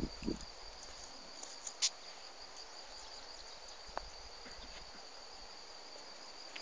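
An insect trilling steadily at a high pitch, with a soft handling brush at the start and two sharp clicks, about two and four seconds in.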